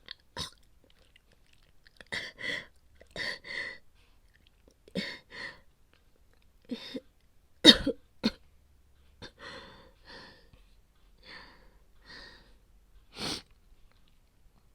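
A young woman's acted coughing fit, from a feverish cold: about a dozen short coughs, many coming in pairs, the loudest a little under eight seconds in.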